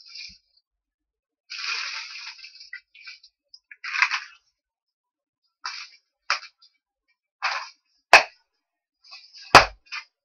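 Packaging being handled during an unboxing: irregular bursts of rustling and crinkling, with two sharp snaps near the end, about a second and a half apart.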